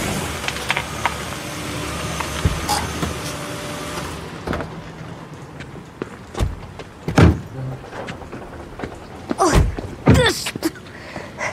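Volkswagen Passat engine running, switched off about four seconds in, followed by several car-door thumps as the doors open and shut.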